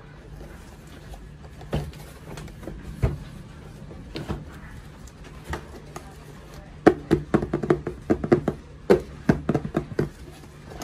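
Hands handling a cardboard toy box: a few scattered knocks and scrapes as it is turned over, then a quick run of sharp taps and clicks about two-thirds of the way through as fingers work at the box top. A steady low hum underneath.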